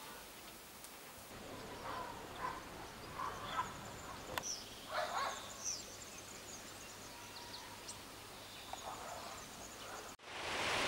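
Faint outdoor ambience with birds chirping in short, scattered calls, and one sharp click about four seconds in. Shortly before the end it cuts to a louder, steady rushing noise.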